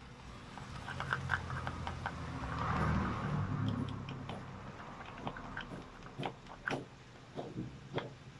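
A small palette knife stirring sticky screen-printing photo emulsion (sensitizer mixed into glue) in a plastic cup: wet scraping and light clicks. A low rumble swells to about three seconds in and fades by the middle.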